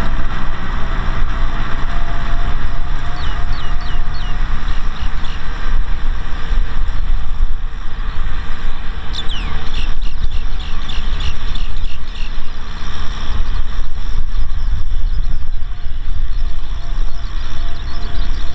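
Kubota M6040SU tractor's four-cylinder diesel engine running steadily under load, pulling a disc plough through dry soil.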